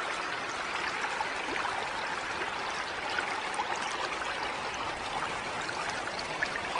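Running water trickling steadily, like a small stream or pond outflow.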